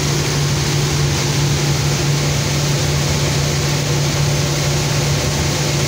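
Vibro separator running as it cleans wheat: a steady machine hum over the even hiss of grain pouring through it.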